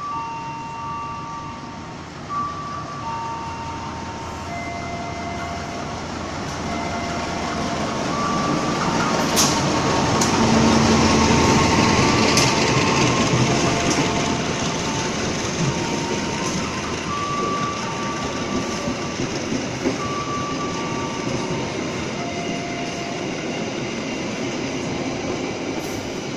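Diesel-hauled passenger train passing close along a station platform. The rumble of locomotive and wheels builds to its loudest about ten seconds in, with a couple of sharp clicks, then the coaches and baggage car roll by with steady wheel noise.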